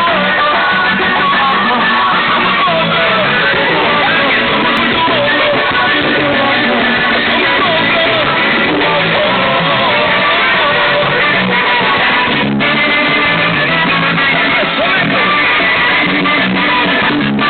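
Loud music with guitar and some singing, played through a Volkswagen Gol's car sound system.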